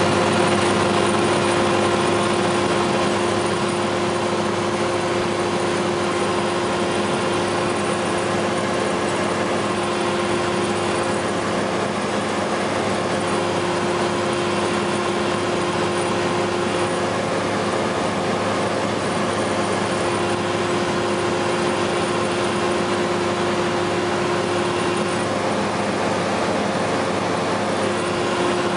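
FlightStar ultralight's engine and propeller running steadily in cruise flight: a constant, unchanging drone with a strong, even hum and rushing noise.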